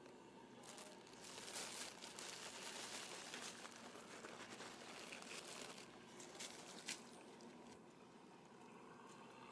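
Faint crackling and rustling of dry leaf litter underfoot, from about a second in until about six seconds, followed by a couple of sharp clicks.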